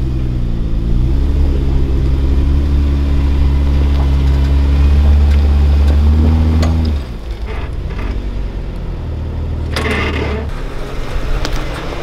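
Jeep Wrangler JK's engine pulling steadily under load as the Jeep crawls up a steep dirt mound. About seven seconds in, the engine sound drops away suddenly to a quieter running note, and a short rushing burst comes near ten seconds.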